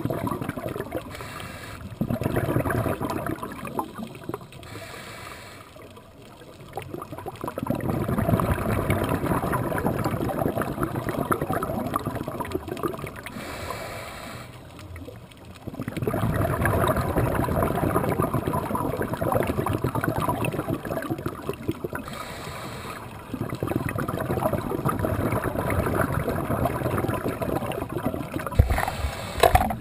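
Scuba diver's regulator breathing, heard underwater through a GoPro's housing. Four long bursts of crackling exhaust bubbles, each lasting several seconds, alternate with short, quieter hisses of breathing in.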